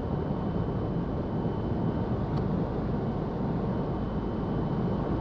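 Steady road and engine noise of a vehicle cruising on a sealed highway, heard from inside the cabin.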